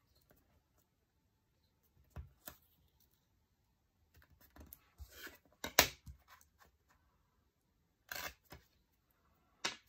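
Hands working planner pages, washi tape and a steel ruler: scattered paper rustles and short taps, the loudest a sharp tap about six seconds in.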